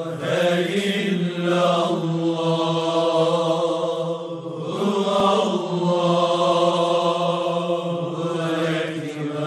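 Male chanting in long held notes, played from a television: two long phrases with a short break about halfway through.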